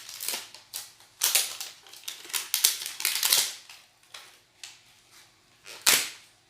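Foil Pokémon booster packs being handled, with irregular bouts of crinkling and crackling, densest in the first half, and one sharp crackle near the end.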